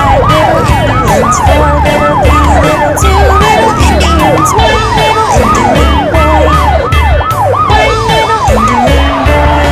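Police car siren wailing rapidly up and down, several rises a second, with low pulses and ticking underneath.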